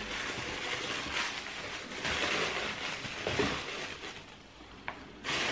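Rustling and handling noises as a cardboard shoebox of trainers is unpacked, with a short click near the end.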